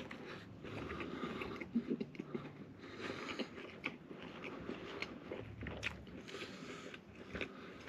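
A person chewing a big mouthful of McDonald's Double Big Mac close to the microphone: wet, smacking mouth sounds with irregular small clicks and light crunches.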